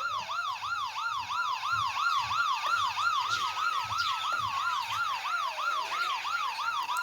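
Recorded electronic siren sound effect playing. A fast warble near 1 kHz repeats about three to four times a second over a slower wail that rises, falls about five to six seconds in, and rises again.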